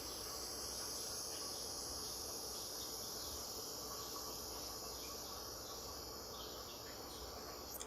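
Green gas hissing steadily out of an ACM M26 grenade-shaped gas refill charger into a WE AK airsoft magazine as the magazine is filled; the hiss cuts off sharply near the end.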